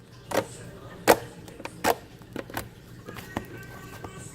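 A few sharp clicks and knocks, the loudest about a second in, over faint background music.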